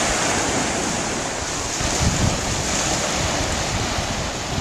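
Surf washing onto a sandy beach, a steady rushing noise, with wind buffeting the microphone in an uneven low rumble.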